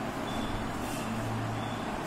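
Steady low hum and rumble of background noise, with no speech.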